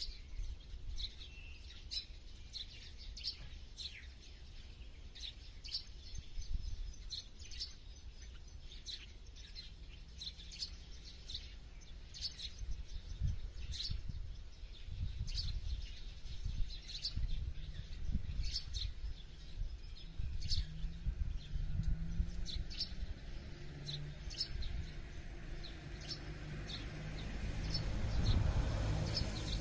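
Wild songbirds chirping outdoors: short, high calls repeating every second or so over a steady low rumble. Near the end a broad low rumble swells up and fades.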